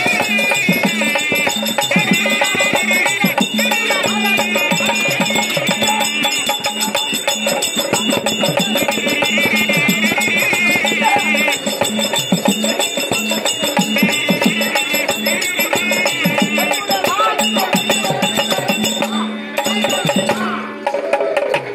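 Therukoothu folk-theatre ensemble playing: fast hand-drum strokes under a high, wavering ornamented melody and a steady drone, with the dancer's ankle bells jingling as she stamps. The music thins out near the end.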